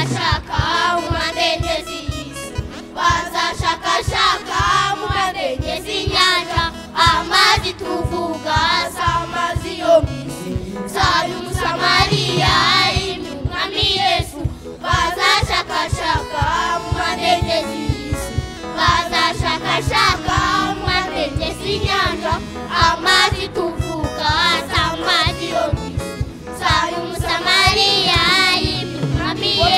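A young child singing a Kinyarwanda gospel song over backing music with a steady beat.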